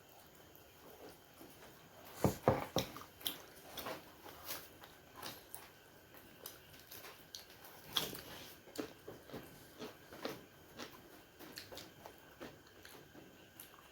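Close-up eating sounds: biting and chewing steamed momo dumplings, a run of irregular wet clicks and smacks, loudest a couple of seconds in.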